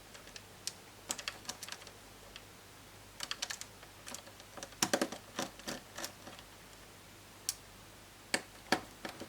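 Irregular light clicks and taps of a screwdriver and small parts on a laptop's chassis while a hinge screw is being taken out, some clicks coming in quick little clusters.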